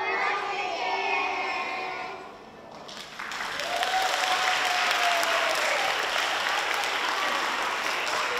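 Voices for the first two seconds or so, then an audience starts applauding about three seconds in and keeps clapping steadily, with one drawn-out cheer near its start.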